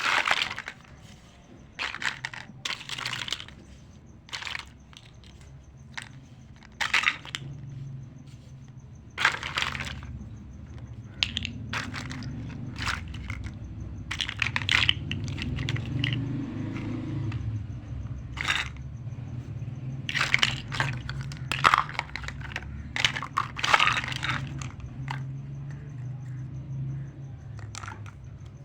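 Handling of a miniature toy kitchen set and its packaging: irregular crinkles, clicks and crunches, some bunched close together, over a low steady hum.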